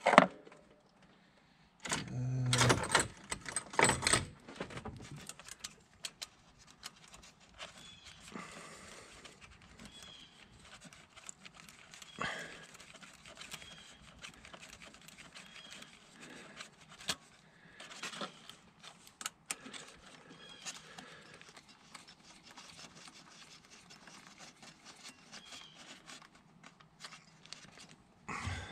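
Hand tools and small metal parts clattering and clinking, loudest in a burst about two to four seconds in, then scattered light clicks and rattles as parts and a socket are handled.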